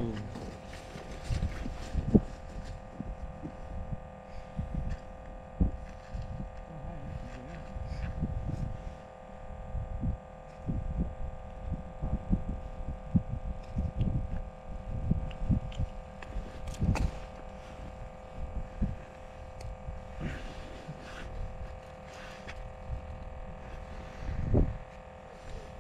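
Wind buffeting the microphone: irregular low thumps and rumble over a steady hum.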